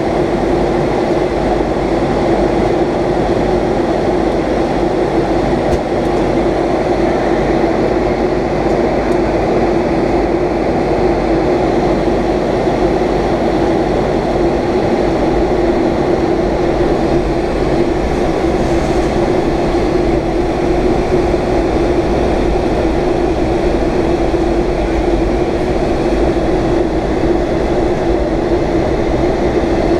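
Steady cabin noise inside a Boeing 757-200 airliner in flight: an even rush of engine and airflow noise with a constant low hum, unchanging throughout.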